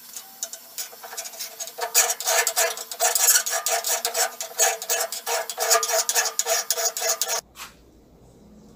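Bastard file rasping along the edge of a Tramontina machete blade in rapid back-and-forth strokes, the steel ringing under the file; the filing stops suddenly near the end. The filing is raising an edge on the blade's second side.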